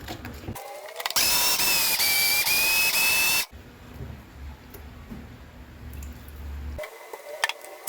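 An Arzum electric blender's motor running in a burst of about two seconds with a steady high whine, then cutting off abruptly.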